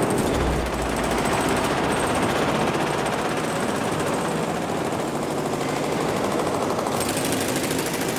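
Continuous rapid mechanical hammering, a dense hard rattle of blows many times a second, turning brighter and hissier near the end.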